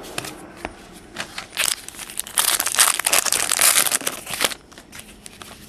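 Crinkling of a plastic trading-card wrapper as cards are handled, with scattered clicks at first, then a dense, loud crackle for about three seconds from about a second and a half in, easing off near the end.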